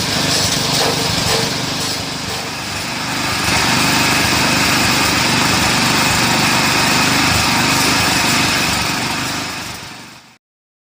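Small petrol engine running a patchouli chopping machine at steady high speed. It dips slightly about two seconds in, runs louder and steady from about three and a half seconds, then cuts off suddenly near the end.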